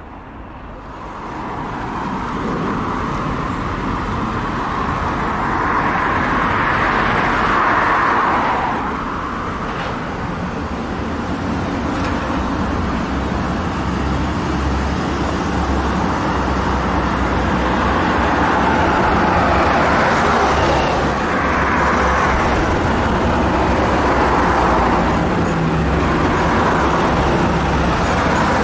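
Diesel trains running on the mainline, their engines and wheels making a steady noise that swells and eases several times.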